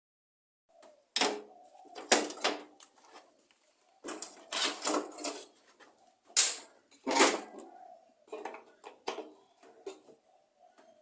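Metal clinking and clanking of spanners and bolts on a lawn mower being dismantled: irregular knocks and rattles, the loudest about two seconds in and again past the middle, with lighter clicks near the end.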